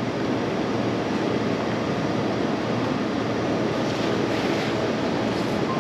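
Steady rushing noise with no pitch or rhythm, and a short faint electronic beep near the end.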